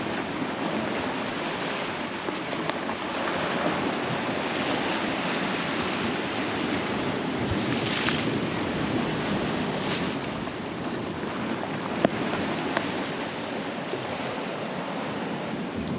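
Sea surf washing steadily along the shore, with wind buffeting the microphone and a few brief clicks.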